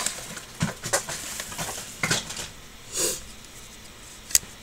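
Small hard plastic toy basket and its packaging handled in the hands: scattered clicks and taps, a brief rustle about three seconds in, and one sharp click near the end.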